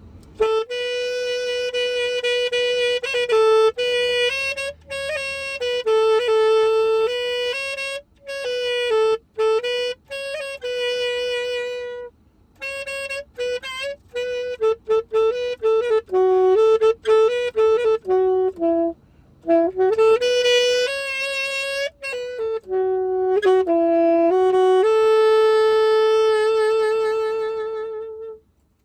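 Alto saxophone fitted with a handmade wooden mouthpiece, played solo: a melody in short phrases with brief breaks between them, ending on a long held note.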